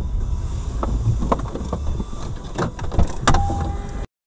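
Low road rumble inside a moving car, broken by a series of sharp clicks and knocks, the loudest two about three seconds in, then the sound cuts off suddenly near the end.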